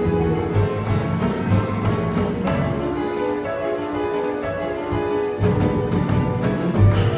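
A small live band playing: upright piano, double bass and drum kit with percussion, heard in a large hall. The low bass line drops away for a few seconds in the middle, then comes back.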